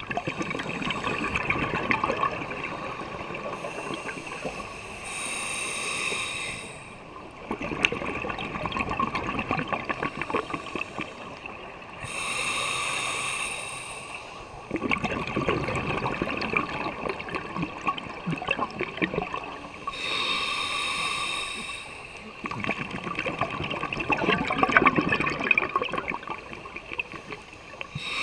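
Scuba diver breathing through a regulator underwater. Each breath is a short hissing draw on the inhale, followed by a long bubbling exhale of several seconds, repeating about every seven seconds.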